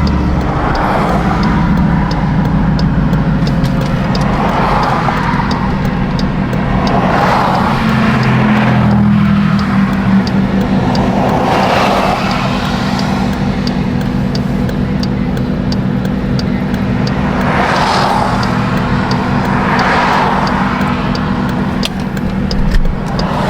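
Car engine running steadily while driving, a constant low drone, with soft whooshing swells of road and wind noise every couple of seconds.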